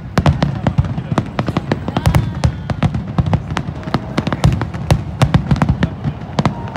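A rapid barrage of aerial firework shells bursting: many sharp bangs a second, overlapping, with deep booms underneath.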